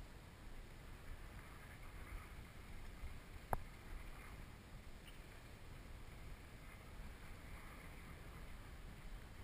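Faint wind buffeting the microphone, a low unsteady rumble, with a single sharp click about three and a half seconds in.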